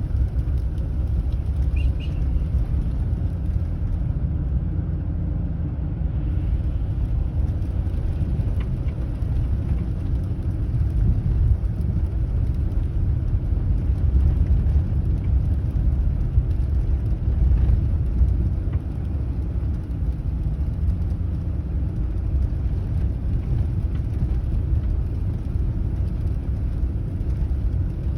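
A car driving: steady low rumble of road and engine noise.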